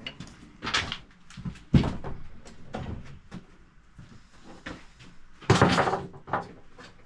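Objects being set down and moved about on and under a newly fitted shelf: a handful of separate knocks and clunks, the sharpest about two seconds in, and a longer scraping sound about five and a half seconds in.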